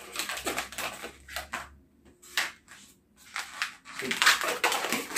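A long latex modelling balloon being twisted and handled: quick, irregular squeaks and rubbing of the inflated latex, loudest about four seconds in.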